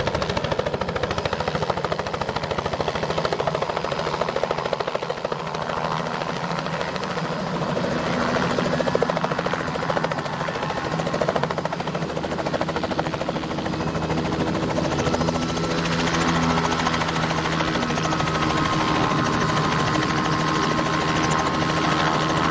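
Robinson R66 turbine helicopter landing: a steady chop of the main rotor blades with the turbine running as it comes in and hovers. About two-thirds of the way through, once it has settled on the pad, the chop eases and a steady turbine whine stands out.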